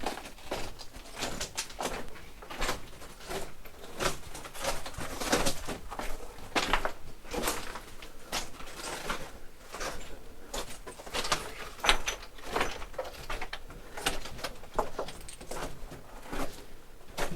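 Footsteps crunching and scraping over loose rock rubble, an irregular run of steps with no pause.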